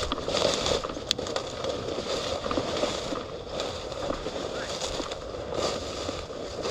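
Steady rustling and crackling of dry field cover being pushed through, with a sharp click about a second in.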